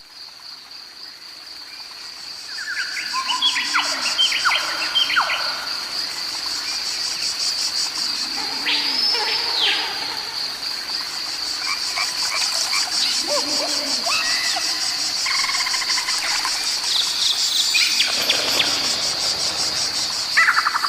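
Insects trilling in a steady, high, pulsing drone, with short bird chirps breaking in over it every few seconds. It fades in over the first couple of seconds.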